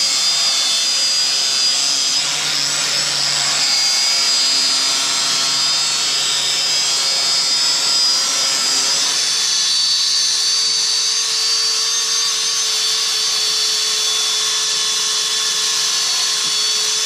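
Angle grinder running steadily with a high whine as its spinning brush disc scrubs rust and dirt off a car's wheel hub face. A little past halfway the sound changes and settles onto a steadier, lower tone.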